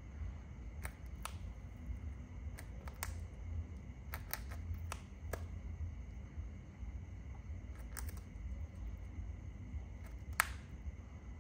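Irregular sharp clicks and snips, about a dozen, as a shikra tears at a pigeon carcass with its beak, the loudest near the end. A steady low hum runs underneath.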